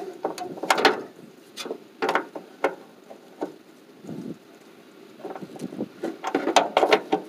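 Hand socket ratchet on an extension working a bolt, its pawl clicking in short uneven runs along with the clink of the steel tool; the sounds come thickest about five to seven seconds in.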